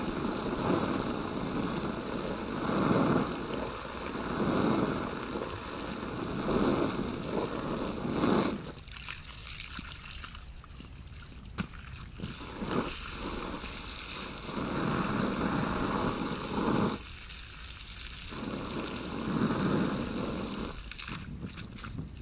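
Garden hose spraying water onto a roll-top dry bag lying in a puddle, the spray hissing and splashing in swells as the stream moves over it. Partway through it goes quieter for a few seconds, with a couple of knocks, then the spray swells again.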